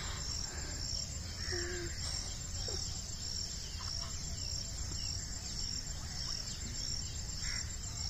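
Outdoor insects chirping: short high chirps repeat evenly, over a steady low wind rumble, with a few faint bird calls.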